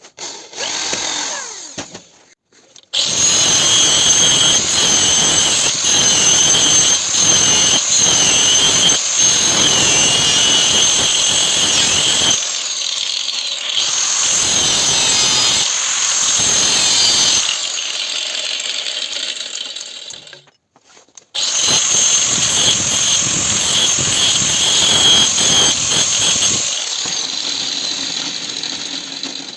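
Power tool working the steel of a saw-blade knife blank with a steady high whine over the noise. It runs in two long stretches with a short stop between them.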